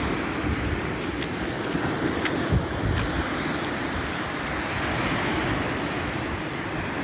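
Surf washing on a beach, a steady rush of waves, with wind buffeting the microphone.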